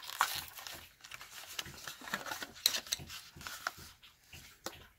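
Faint crinkling and rustling of toy packaging being handled, with scattered light clicks.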